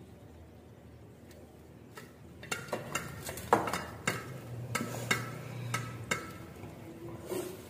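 Hands mixing rice with curry on stainless steel plates: soft wet squishing with a run of sharp clicks and clinks against the metal, starting about two and a half seconds in, the loudest a ringing clink about a second later.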